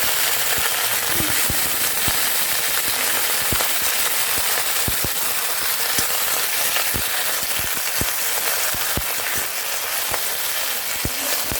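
Freshly washed thuthuvalai leaves sautéing in hot oil in a pan: a steady sizzle with frequent crackles and pops as the water on the wet leaves cooks off.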